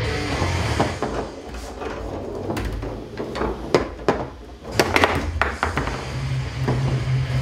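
Table football in play: the ball cracks against the player figures and the table's walls in a string of sharp, irregular knocks, several in quick succession about five seconds in.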